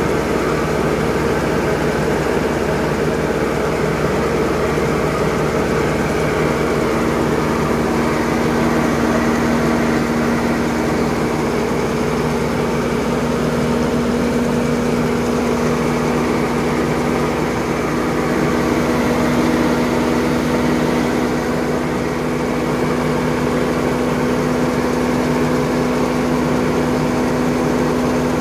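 Engine running steadily, driving the grain auger that unloads wheat through the bottom of the truck trailer, with a constant hum.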